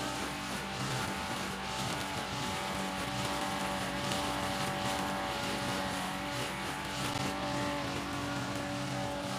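Brush cutter (grass-cutting machine) fitted with nylon trimmer line, its engine running steadily at cutting speed as the spinning line cuts grass.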